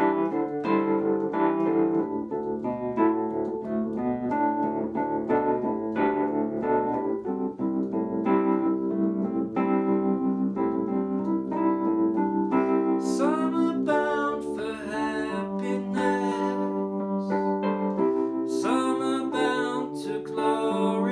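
Electric piano playing sustained chords and a slow melody in a folk-country song. About two-thirds of the way in, a higher melody line with bending, sliding notes joins over the chords, and it comes back near the end.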